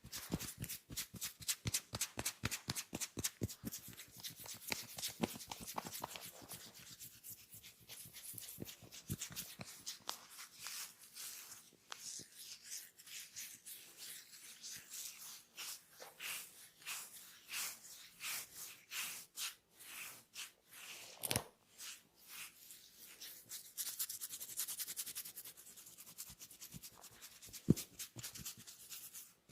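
Hands rubbing and slapping on oiled skin in a deep tissue massage. A quick, regular run of slaps comes first, then slower rubbing strokes with scattered sharper slaps.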